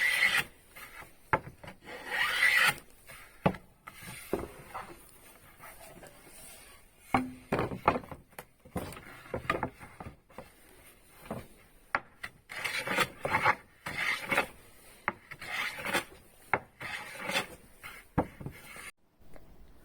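Wood being worked by hand with an abrasive tool, in irregular rubbing strokes of varying length with short pauses between them; it stops abruptly near the end.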